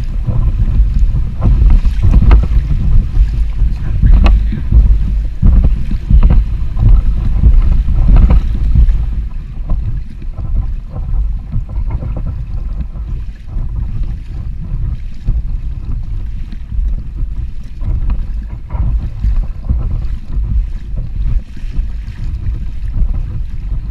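Wind buffeting the microphone in a low, rumbling haze, over water sloshing and splashing around a kayak. The rumble is heaviest for the first nine seconds or so, then eases.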